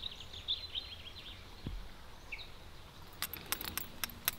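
A bird chirping in a rapid run of short, high notes over faint outdoor background noise, stopping about a second in, with one more chirp later. Near the end, light metallic clicks and jingles of a bunch of keys being shaken.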